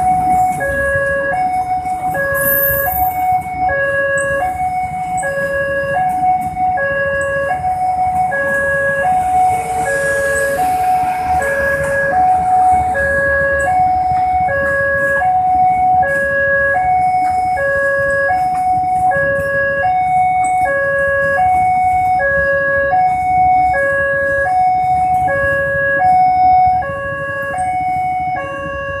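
Railway level-crossing warning alarm sounding a steady two-tone signal, high and low tones alternating at an even pace, over the rumble of a passenger train's coaches running over the crossing. The train rumble drops away near the end as the last coach clears.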